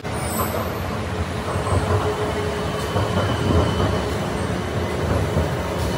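BTS Skytrain electric train pulling into an elevated station platform: a steady rumble of the train running on the rails, with a faint steady whine.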